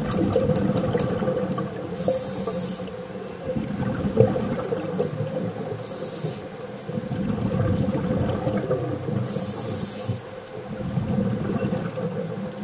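Underwater sound on a reef: a steady low rumble with a faint steady hum, broken every three to four seconds by a short hiss.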